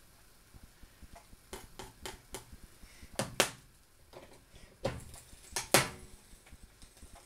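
A scattered series of sharp clicks and knocks as a knife works at a filled dough on the plate of an Express Chef electric grill, ending with the grill's lid clacking shut, the loudest knock, near the end.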